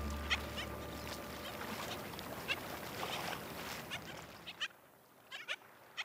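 Scattered short, sharp calls of colonial waterbirds at a nesting island, several dropping in pitch, over a faint steady hiss. Background music fades out in the first second, and the calls and hiss fade away near the end.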